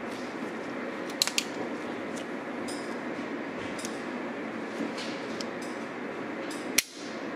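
Small clicks and rubbing from an STI Guardian 9mm 1911 pistol being handled and turned over in gloved hands, with a sharp click near the end, over a steady hiss.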